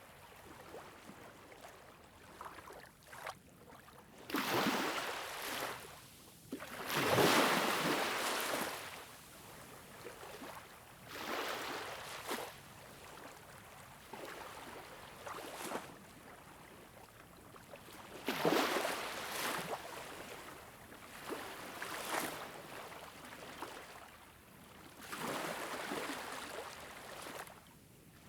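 Waves washing in: water noise that swells and fades every three to four seconds.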